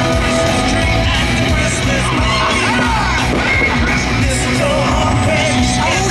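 Loud, steady show soundtrack music with singing and yelled vocals.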